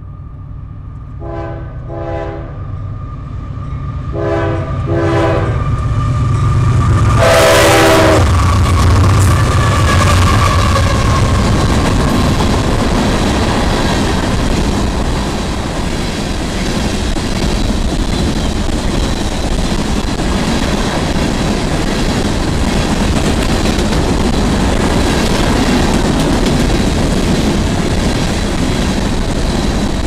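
Diesel freight locomotive's air horn sounding two pairs of short blasts and then one longer, louder blast about seven seconds in as the train comes close. The locomotive then rumbles past and a long string of coal hopper cars rolls by with steady wheel rumble and clatter.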